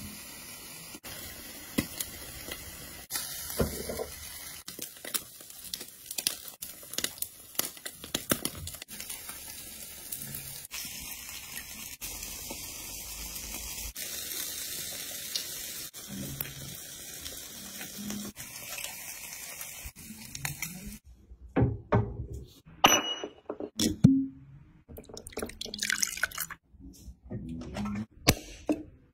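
A fish fillet, likely eel, sizzling and crackling on a hot grill, a steady hiss full of small pops. About twenty seconds in this gives way to a string of sharp clicks and knocks as a metal drink can is handled and its ring-pull opened.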